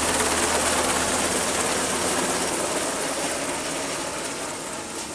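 Sikorsky MH-60R Seahawk helicopter flying away: its rotors and twin turboshaft engines give a steady whirring rush that slowly fades as it draws off.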